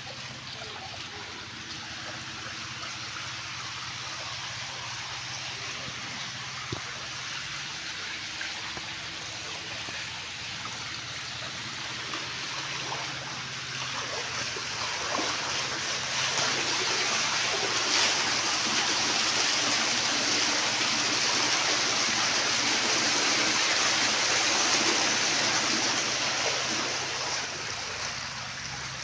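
Shallow water running over a concrete and mossy stone bed: a steady rushing and trickling that swells louder a little past halfway and eases again near the end.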